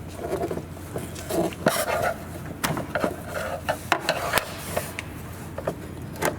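Hard plastic clicking and rubbing from a van's front turn-signal and marker light assembly being handled, with its bulb connectors and sockets worked by hand. The clicks are short and irregular.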